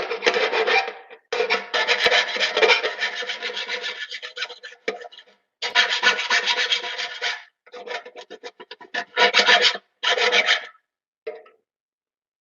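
Hand file rasping across the cut edges of a metal electrical box, smoothing off the sharp burrs left by tin snips, in several runs of strokes with short pauses between.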